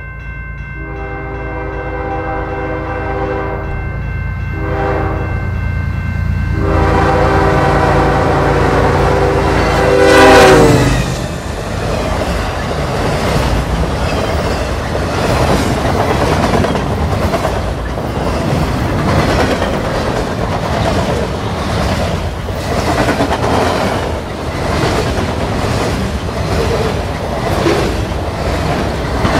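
Diesel freight locomotive sounding its horn in several blasts for a level crossing, the last blast long and dropping in pitch as the locomotive passes about ten seconds in, over the rumble of its engine. The freight cars then rattle and clack steadily over the rail joints.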